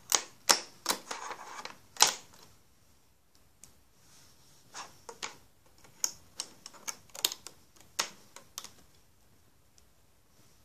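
Irregular sharp plastic clicks and taps as rubber bands are worked off the pegs of a plastic rubber-band loom with a hook. There is a quick run of clicks at the start, the loudest about two seconds in, then a second run from about five to nine seconds in.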